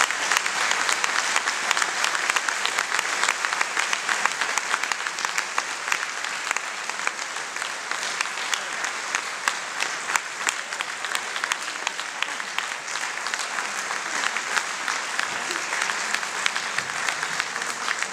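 Audience applauding: many hands clapping in a dense, sustained patter that eases off slightly as it goes on.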